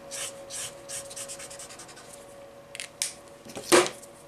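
Paint marker tip rubbing and scratching across watercolour paper in a few short strokes, with a louder sharp click near the end.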